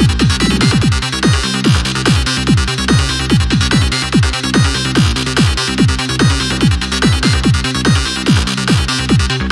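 Goa trance loop playing back unmixed: a steady four-on-the-floor kick drum, about two beats a second, under a busy synth lead made with Ableton's Operator FM synthesizer.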